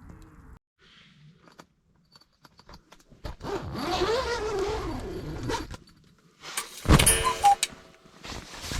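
Metal items clattering and scraping, with one loud ringing clank about seven seconds in.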